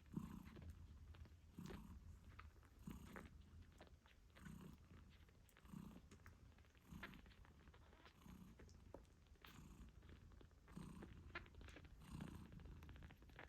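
Mother British shorthair cat purring softly, the purr swelling and easing with each breath about every second and a half, with faint small ticks alongside.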